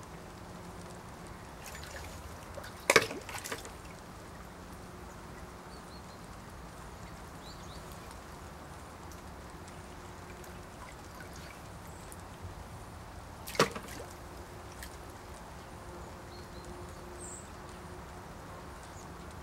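Water sloshing and trickling in a plastic bucket as a hand holds a flashlight under the water. Two sharp splashes stand out, about three seconds in and again about ten seconds later.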